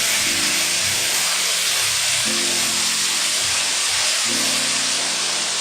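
Chicken wings sizzling steadily in hot fat in a frying pan as dark soy sauce goes in, with soft background music underneath.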